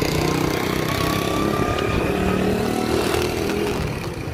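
An engine running steadily, its pitch rising slowly.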